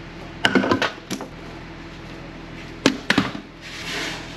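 Sharp clicks and knocks of small hard hardware being handled, in two quick clusters about half a second in and near three seconds. A short rushing noise follows near the end, over a steady low hum.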